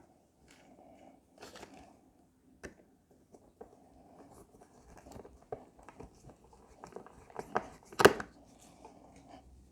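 Handling of workshop tools on a wooden panel: scattered clicks and light knocks as the clamps and Kreg hinge jig are taken off, with a louder knock about eight seconds in.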